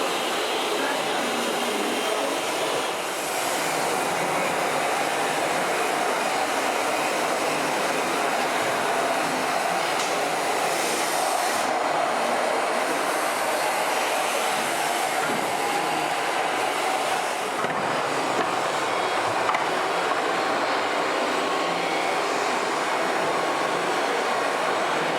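Scale RC trucks and construction machines running, a steady whirring of small electric motors and gearboxes over a constant noisy background.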